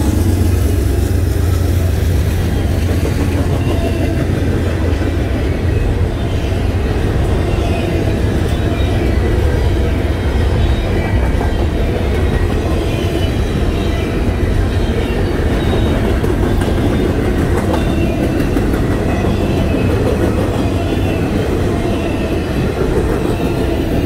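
Canadian National double-stack intermodal freight train passing close by: a trailing diesel locomotive goes by at the start, then loaded container well cars roll past with a steady, loud low rumble of steel wheels on the rails.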